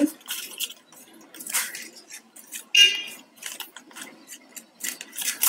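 Flat plastic basket-weaving wire rustling and clicking as strands are handled and pulled through a knot, in short irregular bursts. A short squeak about three seconds in is the loudest sound.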